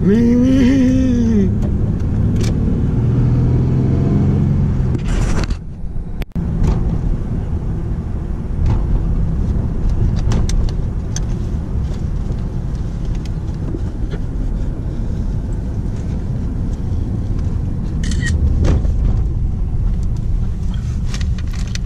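Steady low rumble of a car driving, with road and engine noise heard from inside the cabin. It dips out briefly about six seconds in.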